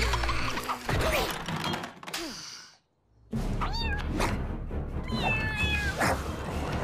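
Cartoon kitten meowing over background music: a short rising-and-falling mew, then a longer falling meow. Before a brief silence near the middle, thuds and short squeaky animal calls from a scuffle.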